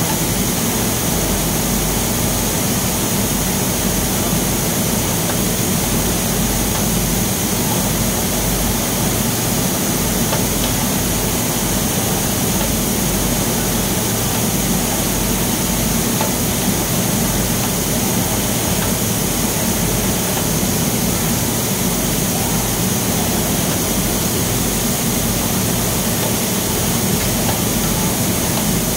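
Steady, loud drone of industrial machinery with rushing air: a low hum under an even hiss.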